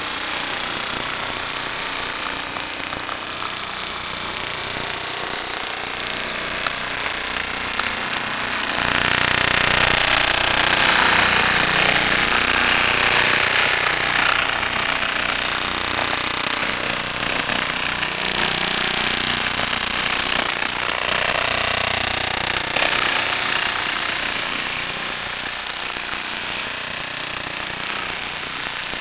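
Quarters sliding and pouring out of a tilted plastic tub into a plastic bucket: a continuous dense clatter of coins, heaviest from about a third of the way in until about three quarters through.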